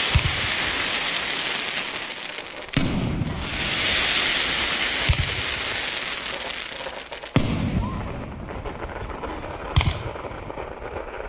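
Fireworks going off: sharp bangs a few seconds apart, each followed by a crackling hiss that swells and fades over several seconds.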